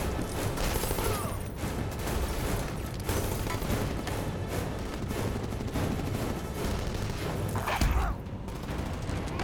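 Action-film sound mix of an airplane being seized in mid-air: a heavy rumble with rapid rattling bangs and clatter over dramatic score music, and a big thud near the end as a man cries out.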